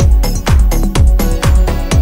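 Background music: an electronic track with a steady kick-drum beat, about two beats a second, under held synth tones.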